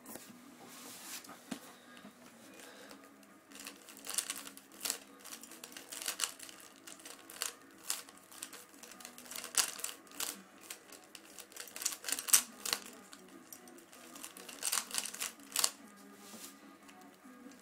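3x3 Rubik's cube being turned fast by hand: its plastic layers clack in quick, irregular clicks, few at first and thick from about four seconds in until near the end.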